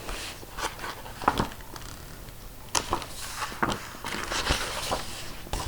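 Faint handling noise: a few scattered light clicks and rustles.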